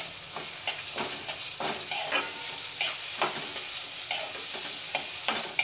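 Ground masala paste sizzling in hot oil in a metal kadai, stirred with a metal spatula that scrapes the pan in repeated strokes.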